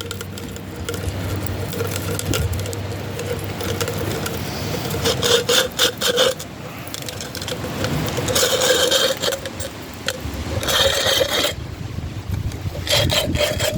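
Plastic bottle being sliced into a thin strip by the razor blade of a small bottle cordage maker as the strip is pulled: a rasping plastic scrape that comes in uneven, jerky spurts.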